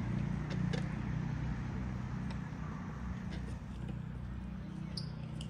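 A car's engine running on a nearby road: a low, steady hum that slowly fades, with a few faint clicks over it.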